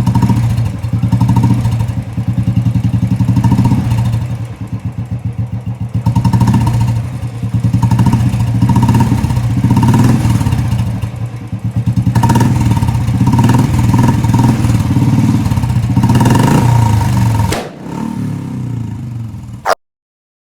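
Royal Enfield Classic 350's single-cylinder engine breathing through an HK Indori aftermarket silencer, revved up again and again in a deep, bass-heavy thump, with crackling pops as the throttle closes, which the owner takes for the silencer failing the no-backfire test. Near the end there is a sharp bang, the engine drops to a lower idle, then the sound cuts off suddenly.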